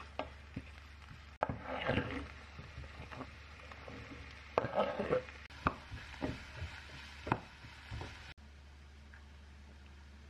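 Wooden spatula stirring and scraping chopped garlic, then diced onion, in oil in a nonstick frying pan, in bunches of scraping strokes with a few sharper knocks. The stirring stops abruptly about eight seconds in.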